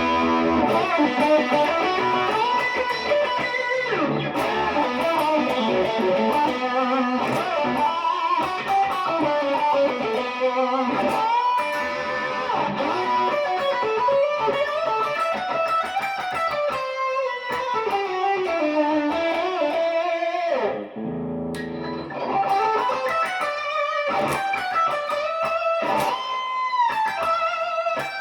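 PRS Special Semi-Hollow electric guitar played through an amplifier: melodic single-note lines with bent notes and some held notes, pausing briefly about two-thirds of the way through.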